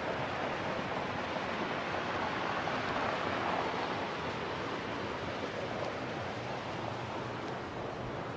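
Steady rushing of a large waterfall, Chishimba Falls, heard as an even, unbroken roar of falling water.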